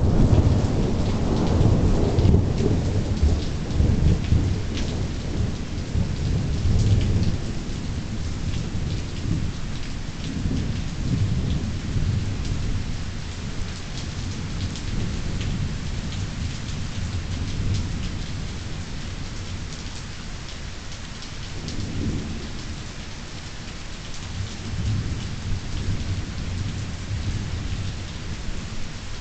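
Thunder rumbling in a rainstorm over steady rain, with scattered drops ticking close by. A long roll of thunder is loudest at the start and dies away over several seconds. Fainter rolls return about two-thirds of the way through.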